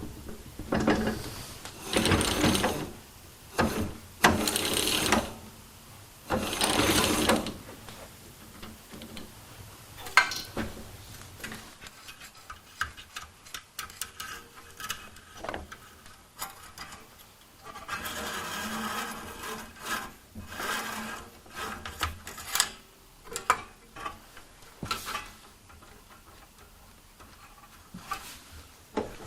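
Intermittent mechanical clicking and rattling from hand-tool work on a go-kart, in separate bursts of about a second with quieter scattered clicks between.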